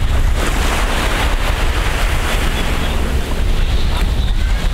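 Wind buffeting the microphone with surf breaking and washing up the sand; the wash swells about half a second in and eases near the end.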